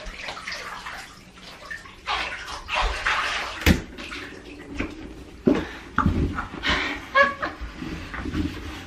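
Water from a handheld shower splashing in a bathtub in uneven spells, with a sharp knock a little under four seconds in and several more thumps later.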